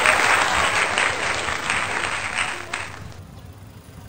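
A group of people applauding with dense, fast clapping that dies away about three seconds in.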